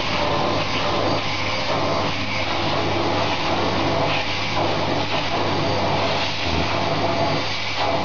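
Vacuum cleaner running steadily: a constant motor whine over rushing air, with a low hum beneath.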